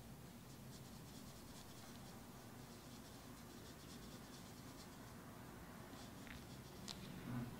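Faint scratching of a paintbrush dragging a thick, nearly dry mix of acrylic gouache across sketchbook paper, in short strokes.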